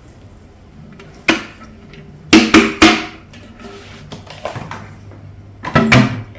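Sharp plastic clacks and knocks from a vacuum cleaner's dust container being handled and emptied of its dirt: one about a second in, three quick ones in the middle, and a couple more near the end.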